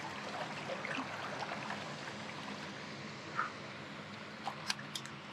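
River water trickling and lapping steadily, with a few light clicks near the end.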